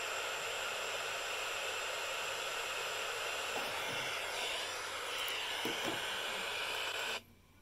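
Radio static: a steady hiss from a receiver tuned to a station that has gone off the air. It starts suddenly and cuts off suddenly about seven seconds in.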